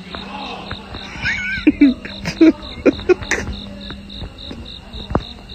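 Crickets chirping in an even pulse, about four or five chirps a second, over a low steady hum, with a run of short sharp clicks and knocks from about two seconds in.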